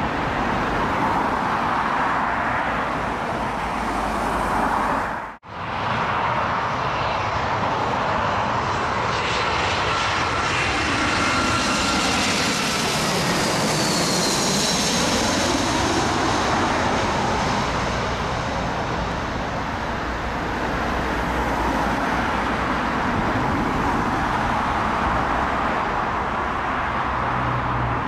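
Airbus A320-232 airliner on final approach passing low overhead, gear down, with the steady roar and high whine of its IAE V2500 jet engines. The sound builds as it nears, and the whine drops in pitch as it goes past about halfway through, then fades. It comes after a brief break about five seconds in.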